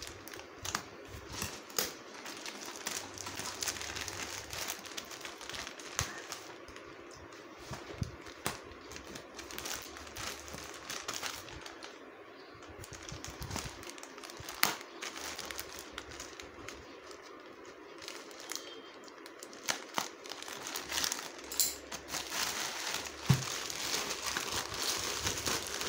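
Plastic courier mailer bag crinkling and crackling as hands grip, turn and squeeze it, with scattered sharp crackles; the handling gets louder near the end.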